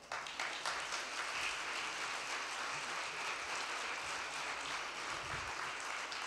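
Audience applauding at an even level.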